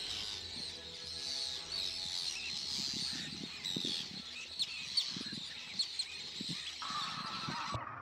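Many birds calling at once: a dense, steady twitter of short high chirps, with a few louder chirps and some low thumps near the middle.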